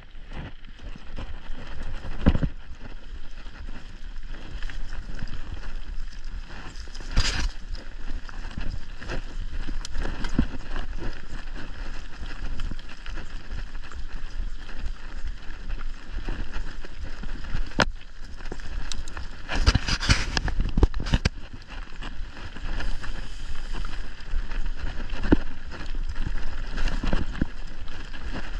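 Mountain bike ridden over a dirt and leaf-litter forest trail: steady tyre and trail noise with the bike rattling, broken by several sharp knocks as it goes over bumps.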